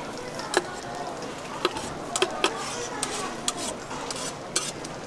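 Aluminium cooking pot and utensil clinking sharply against a ceramic bowl several times as ramyeon noodles and broth are poured out, over a steady hiss.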